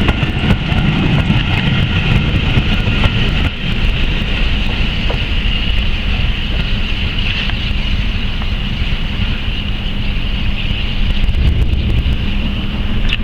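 Steady low rumble of a moving heritage train, with wind buffeting the microphone and a constant high hiss.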